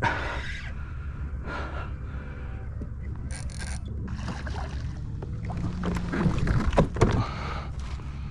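Handling and water noise from a kayak while a hooked snook is fought: short splashes or scrapes, sharp knocks clustered about six to seven seconds in, and some hard breathing, over a steady low rumble.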